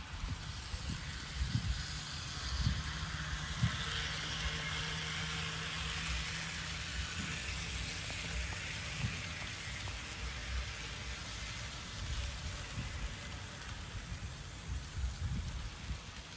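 HO scale model freight train rolling on its track, an even hiss of wheels on rail with a faint low hum under it for a few seconds. Scattered dull low thumps come through, mostly in the first few seconds and again near the end.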